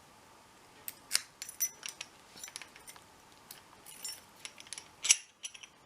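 A large American A790 padlock being handled: a run of irregular metallic clicks and clinks, the loudest about a second in and again near the end.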